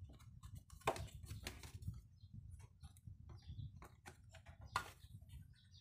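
Plastic clicks and knocks from a DH48J counter's housing and a black plastic mounting panel being handled and pushed together, with two louder clacks, one about a second in and one near the end, over a low steady rumble.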